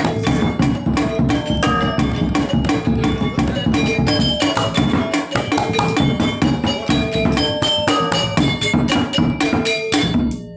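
Balinese gamelan accompaniment for topeng dance: metallophones ring with fast, dense strikes over drumming. The music stops abruptly near the end.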